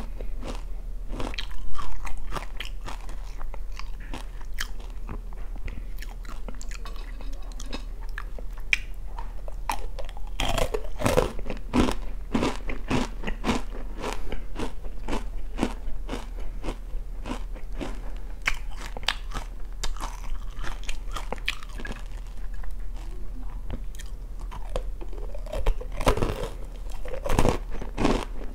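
Close-miked chewing of oranda, a Korean snack of puffed grain bits bound in hardened syrup: a fast, continuous run of crisp crunches, louder around the middle and again near the end. A faint low hum runs underneath.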